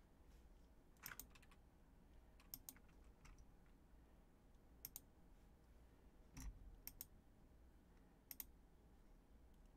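Faint computer clicks while browsing: about six short clicks, most in quick pairs, spread over near silence.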